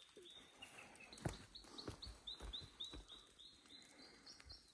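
A small songbird, faint, singing a long run of short, high, down-slurred notes, about four or five a second, that climbs a little in pitch near the end. A few soft thumps sound underneath.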